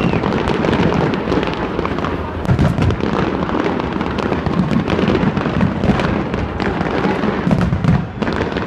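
Fireworks display going off continuously: a dense run of bangs and crackles over a low rumble, with louder bangs about two and a half seconds in and again near the end.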